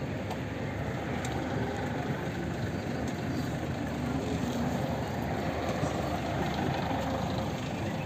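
Steady street traffic noise with a bus engine idling close by.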